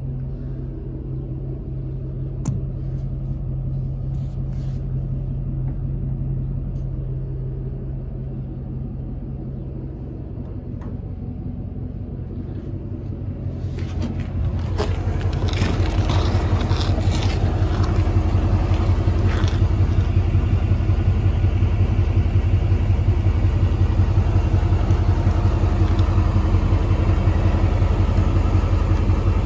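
Truck engine idling steadily: a low, even rumble, muffled at first inside the enclosed service body, then louder from about halfway through and heard close under the truck. A few knocks and clatters of handling and footsteps come in the first half.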